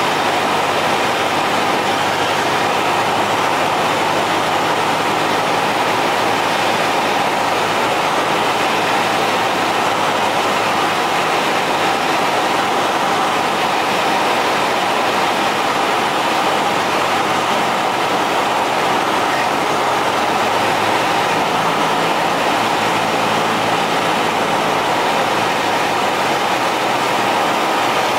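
Cessna 172's piston engine and propeller running steadily, heard inside the cabin during the final descent to landing.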